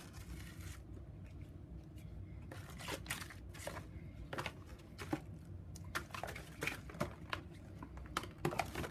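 Hands handling products in a cardboard box lined with tissue paper: a brief rustle at the start, then irregular crinkles, taps and rustles as plastic tubes and a sachet are moved around.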